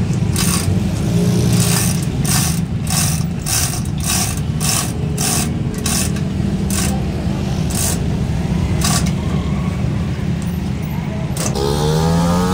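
Hand-operated chain hoist being worked: chain rattling and the ratchet clicking with each pull, about two strokes a second, stopping about nine seconds in. A steady low hum runs underneath, and a short rising tone comes near the end.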